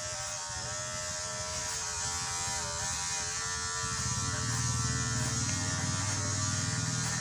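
Electric hair clipper buzzing steadily as it is run through hair. About four seconds in, the buzz grows fuller and lower.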